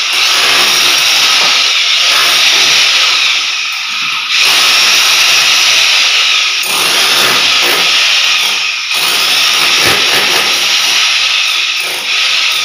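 Electric drill boring a hole through a wall, running loud in stretches of a few seconds with brief let-ups between them.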